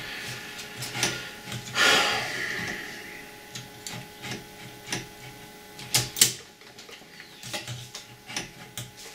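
Irregular clicks and knocks from a cassette deck's plastic and metal parts being handled and prised at during disassembly, with a brief scrape about two seconds in.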